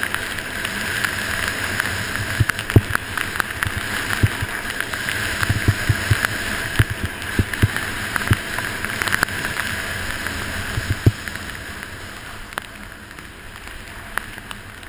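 Völkl One skis running over groomed snow: a steady rushing hiss from the ski bases and edges, broken by irregular low thumps as the skis ride over bumps. The sound grows quieter over the last few seconds.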